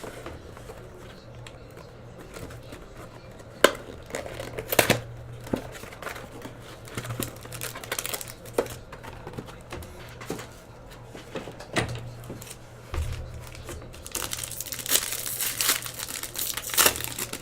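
Trading-card packs and their plastic wrapping being torn open and handled: crinkling plastic, tearing and scattered sharp clicks of cards and cardboard, busiest near the end, over a low steady hum.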